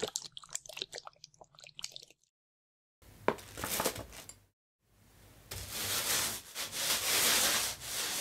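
Thick epoxy floor paint pouring from a tin into a roller tray, with irregular wet splashes for about two seconds. After a short gap a paint roller works wetly in the tray, and from about five seconds a roller spreading the paint over the floor makes a long hiss that grows louder.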